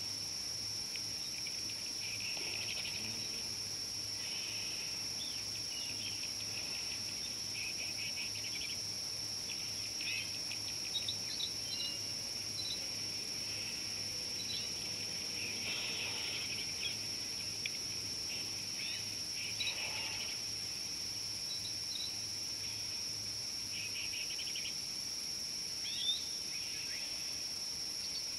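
Steady high-pitched insect drone throughout, with repeated bursts of rapid trilling from crickets and a few short bird chirps.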